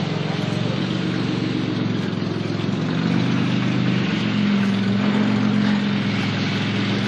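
Engine of a Toyota off-roader built on GAZ-66 axles running steadily, its speed rising a little about three seconds in.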